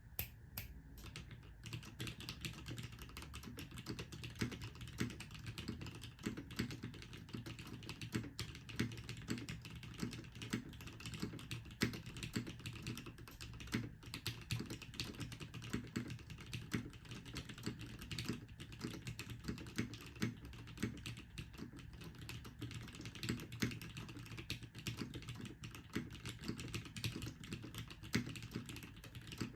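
Continuous typing on a mechanical keyboard with lubed and filmed Cherry MX Retooled Black linear switches in a full FR4 plate, a brass top-mount HBCP case and GMK keycaps: a dense, uneven run of deep keystroke clacks, several a second, with a few louder strokes, likely the spacebar or other stabilized keys.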